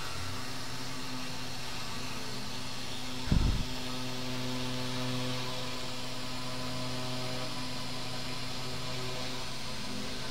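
CNC engraving machine's spindle motor running steadily, a hum with a hiss above it, while the bit engraves plywood. About three seconds in there is a brief, loud low thump.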